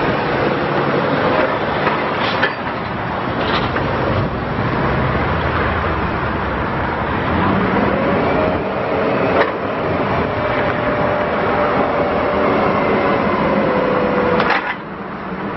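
2011 Komatsu FG25T-16 forklift engine running as the truck drives and turns, then a steady whine over the engine for several seconds while the three-stage mast is raised. A few sharp clicks or knocks are heard along the way, the last and loudest as the mast reaches full height near the end, after which the sound drops briefly.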